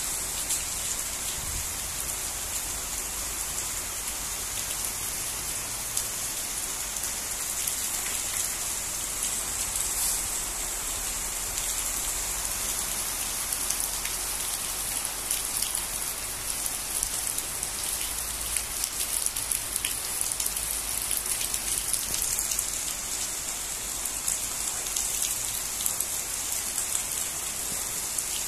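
Torrential rain falling steadily: a dense, even hiss with many small sharp taps of drops through it.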